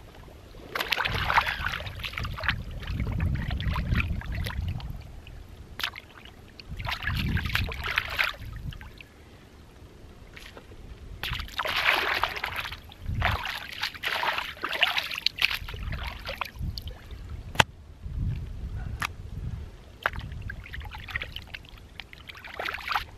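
Hands splashing and sloshing fish in shallow seawater to rinse it, in irregular bursts of a second or two with short pauses between. A single sharp click about two-thirds of the way through.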